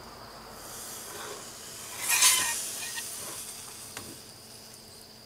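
A glazed, rotisserie-roasted pineapple pushed off a metal rotisserie spit with the back of a knife: a sticky scraping slide, loudest for about half a second around two seconds in, with a light click about two seconds later.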